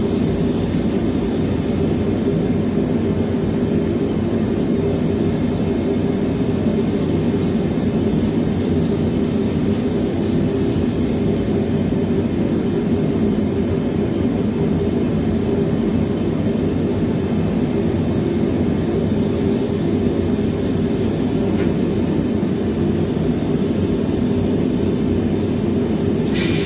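Steady roar of a foundry furnace burner heating the crucibles, a deep even rush that does not change, with a higher rattling starting just at the end.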